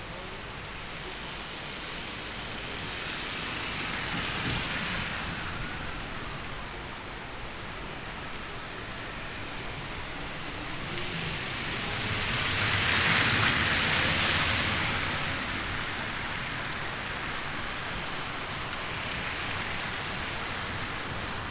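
Steady hiss of heavy, wet falling snow and slush. It swells twice, briefly about four seconds in and more strongly around thirteen seconds, then settles back.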